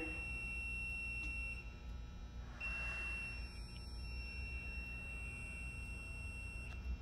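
Silent Knight SK6820EVS fire alarm system sounding a steady high-pitched electronic tone. The tone breaks off for about a second early on, resumes, then stops just before the end. A brief soft hiss comes in about three seconds in.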